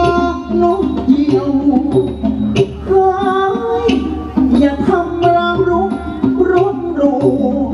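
Thai traditional ensemble music accompanying a likay stage fight: a moving melody over hand drums, with steady percussive strokes.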